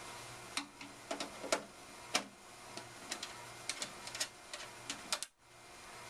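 Irregular light clicks and taps, well over a dozen, from hands working the loosened thumbscrews and side-panel edge of a Dell Inspiron 530 desktop computer case.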